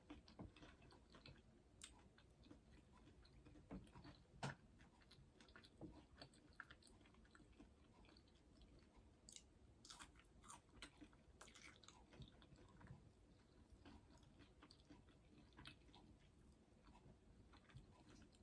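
Faint chewing, with scattered small wet mouth clicks and a sharper click about four and a half seconds in.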